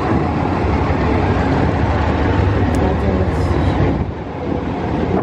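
Army cargo truck driving past close by: a loud, steady engine rumble that eases about four seconds in.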